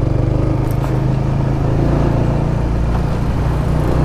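Honda Winner X's 150 cc single-cylinder engine running steadily as the motorcycle is ridden along a street, with a low, even hum.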